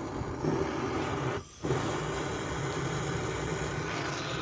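Portable gas torch head on a standard gas canister, its jet flame burning with a steady rushing noise. The sound breaks off for a moment about one and a half seconds in.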